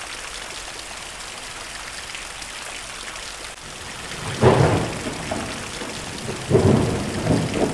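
Steady rain of a thunderstorm, with a loud clap of rumbling thunder about four seconds in and more thunder near the end.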